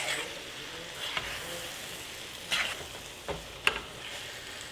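Pad thai noodles with beef and onion frying in a hot pan with a steady sizzle, broken by a few short scrapes and knocks of a utensil stirring the pan.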